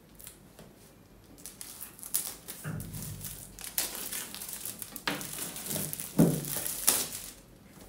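Knife cutting through the plastic wrapping of a small cardboard box, then the plastic crinkling and crackling as it is pulled off by hand, with a few sharp snaps.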